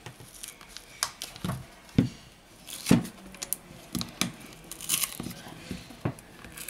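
Plastic prying sheet crinkling and battery adhesive tearing as a smartphone battery is worked loose, with irregular sharp clicks and knocks from the phone and plastic being handled on the work mat, the loudest about two and three seconds in.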